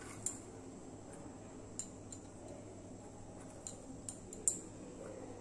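Quiet room tone with a low steady hum and a few faint, sharp clicks, the loudest a little past four seconds in.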